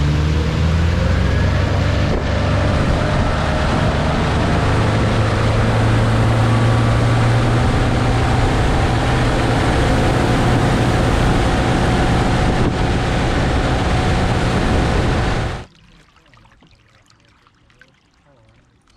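Boat's outboard motor running under way, with heavy wind and water noise, its pitch rising over the first few seconds as it speeds up. It cuts off suddenly near the end, leaving only faint background.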